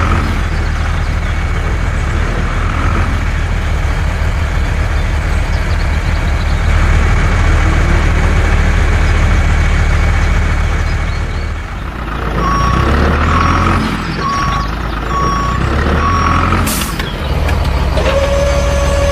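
Truck engine running steadily, then about five reversing beeps, a short air-brake hiss, and a steady tone starting near the end.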